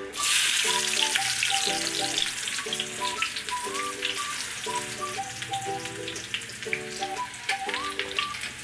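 Sliced onions dropped into hot mustard oil for a tadka, frying with a loud crackling sizzle that starts suddenly as they hit the oil.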